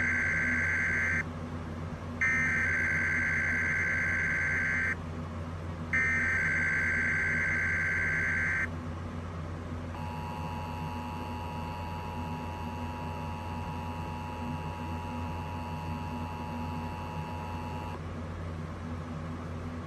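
Emergency Alert System monthly test played over broadcast radio. First come the SAME digital header bursts, a harsh warbling data screech: the tail of one burst, then two more bursts of about three seconds each. After a short pause comes the two-tone EAS attention signal, held steady for about eight seconds, with a low hum underneath.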